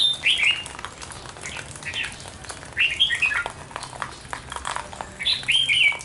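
A bird calling in short, clear chirping notes, given in little groups of two or three about every two to three seconds.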